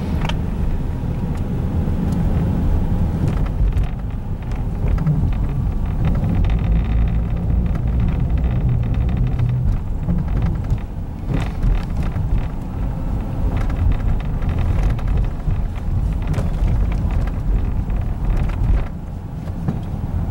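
Steady low rumble of a car's engine and tyres on the road, heard from inside the moving vehicle's cabin.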